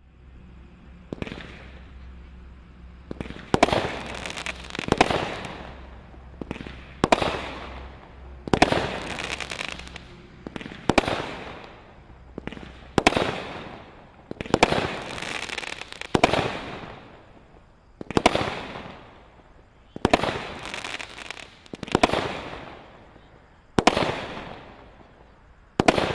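Brothers Super Stallion 16-shot 200-gram firework cake firing shot after shot, about one every one to two seconds after a few seconds of faint hissing. Each shot is a sharp bang followed by fading crackle as the break burns out.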